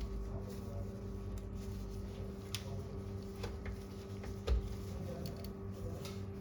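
A few light plastic-and-metal clicks from a desktop computer case being handled during reassembly, with one louder knock about four and a half seconds in, over a steady low electrical hum.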